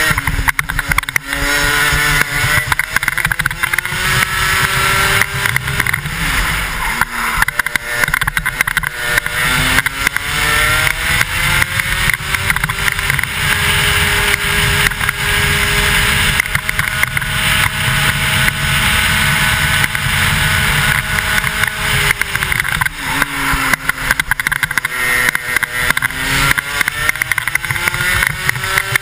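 Single-cylinder two-stroke racing kart engine under full throttle through a lap, heard from the driver's helmet. Its pitch climbs steadily along the straights and holds high, then falls sharply twice as the kart brakes for corners, about six seconds in and again about two-thirds of the way through, before climbing once more.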